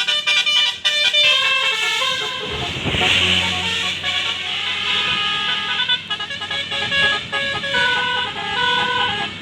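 Tour bus's Basuri telolet horn playing a melody of stepped musical notes. The bus's engine rumbles beneath from about two and a half seconds in, and the horn cuts off suddenly at the end.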